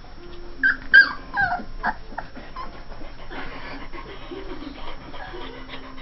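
Two-and-a-half-week-old Saint Bernard puppy whimpering: a quick run of four or five short, high-pitched squeaks that fall in pitch, about one to two seconds in, then softer fussing.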